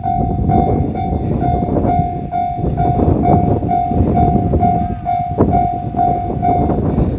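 A level-crossing alarm rings in steady pulses about twice a second over the loud rumble of a freight train hauled by an EF210 electric locomotive running through the crossing, its wheels clicking over the rail joints.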